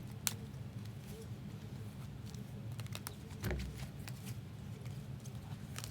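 Trading cards and their plastic holders being handled and sorted: scattered light clicks and taps, a sharper click near the start and a low thump about three and a half seconds in, over a steady low hum.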